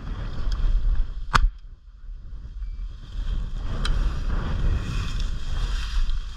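Wind buffeting the microphone and tall dry prairie grass swishing and crunching as a hunter pushes through it. There is one sharp crack about a second and a half in, and a fainter click near the middle.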